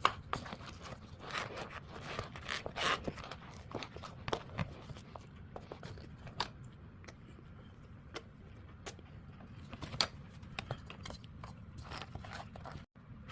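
Close-up marshmallow sounds: irregular soft squishing, tearing and sticky crackling clicks, busier in the first few seconds and sparser after.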